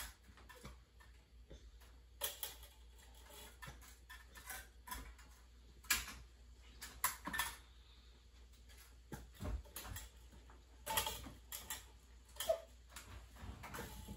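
Scattered light clicks and knocks of plastic toy trucks being handled and set down on a wooden table, coming irregularly a few at a time.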